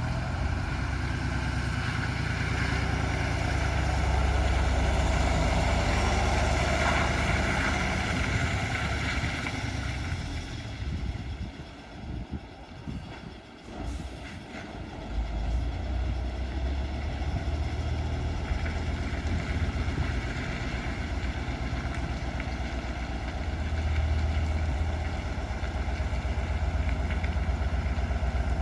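Tatra 815's air-cooled V10 diesel engine running with a steady low pulse. It is loudest in the first ten seconds, falls much quieter for a few seconds midway, then runs on steadily.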